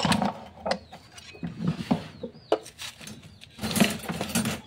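Scattered clicks and knocks of a plastic spatula and blender jar being handled, with animal calls in the background.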